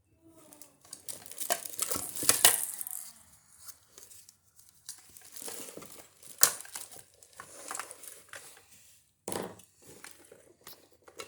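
Toys being rummaged through and handled: irregular crinkling and rustling with sharp clicks and knocks, loudest about two seconds in.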